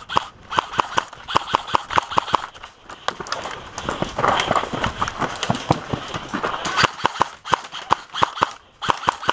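Airsoft guns firing rapid semi- and full-auto strings of sharp cracking shots, about six or seven a second, in several bursts, with a stretch of rustling noise in the middle.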